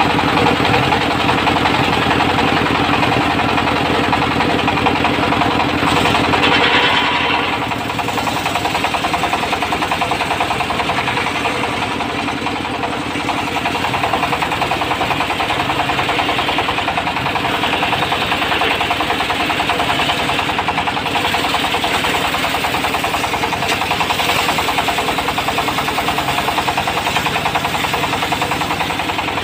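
Diesel engine driving a portable circular-saw sawmill, running steadily with a rapid knocking beat. The sound drops slightly about seven and a half seconds in.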